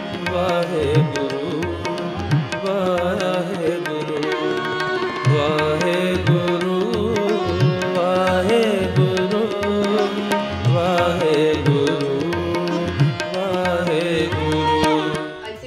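Sikh devotional music (kirtan): a voice singing a wavering melody over tabla strokes and steady held tones.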